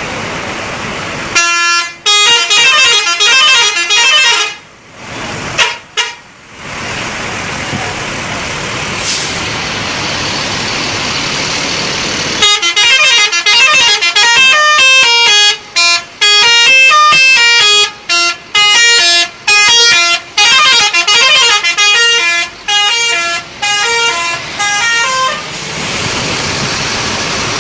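Telolet bus horn, a bus's multi-tone musical horn, playing a quick tune of changing notes: a short burst about a second and a half in, then a longer tune of about thirteen seconds starting near the middle. Steady road and traffic noise runs before, between and after the tunes.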